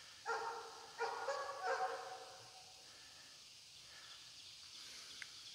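A dog giving three short, pitched calls in quick succession in the first two seconds, then quieter outdoor background.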